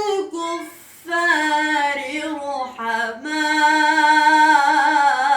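A woman's voice chanting Quran recitation in the melodic tajweed style, with no instruments. Each word is drawn out into long held notes, with a brief pause about half a second in and a long steady note near the end.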